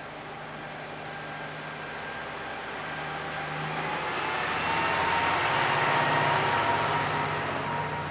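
A vehicle approaching and passing. Its sound swells to a peak about six seconds in, then begins to fade. A steady whine and a low hum are carried over the noise.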